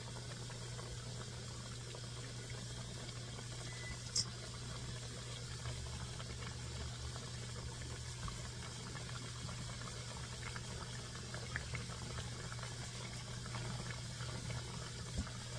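Flour dumplings deep-frying in a pot of hot oil: a steady sizzle and bubble, over a low steady hum, with one short sharp click about four seconds in.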